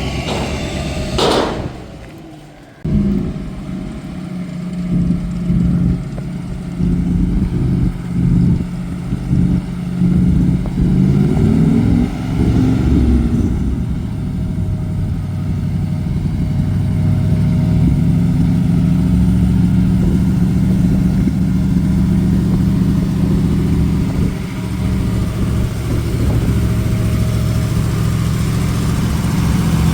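A car engine running at a low idle, with uneven surges in level and a couple of brief rises in pitch as it is revved.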